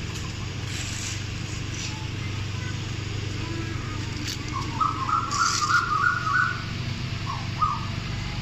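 Car engine idling with a steady low hum. A quick run of bird chirps sounds about five seconds in, then two short chirps near the end.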